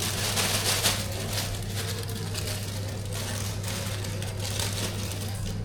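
Rustling, crinkling handling noises, a quick run of short scrapes that is densest in the first second, over a steady low hum.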